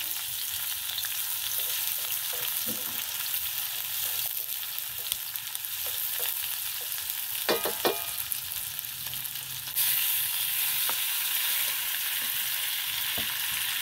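Sliced onions sizzling in hot coconut oil in a metal wok as they are stirred with a wooden spoon, with a few knocks of the spoon against the pan about eight seconds in. The sizzle grows suddenly louder near ten seconds in and stays up.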